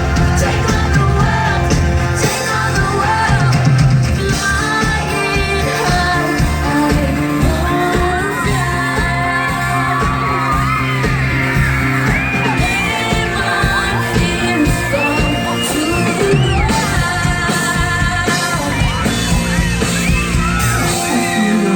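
Live pop band playing with singing over it and the audience yelling and screaming, recorded from within the crowd.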